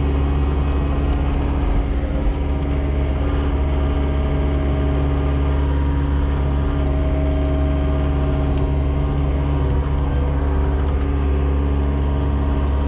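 Skid steer loader's engine running steadily under load, heard from inside the cab while it carries a cornstalk bale.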